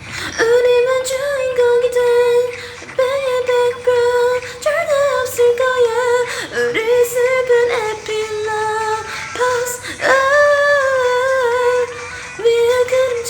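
One voice singing a K-pop girl-group song cover, mostly long held notes broken by a few short gaps.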